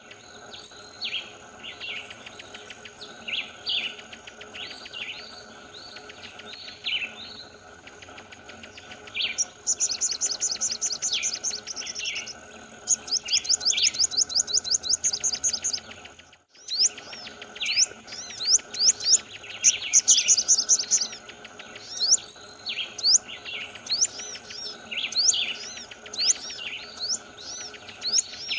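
Small songbirds singing in quick, repeated chirps and sweeping whistles. A fast, high trill comes in near the middle, and sharp upward-flicking notes follow in the second half.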